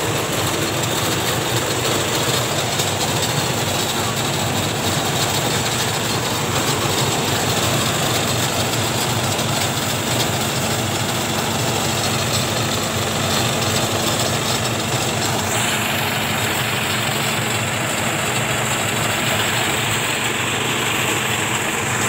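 Engine-driven portable rice thresher running steadily under load, its drum threshing rice stalks and blowing the straw out. The sound goes on without a break.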